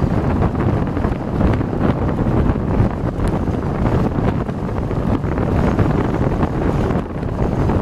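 Wind buffeting the microphone over the steady rumble of a vehicle driving at highway speed on a paved road.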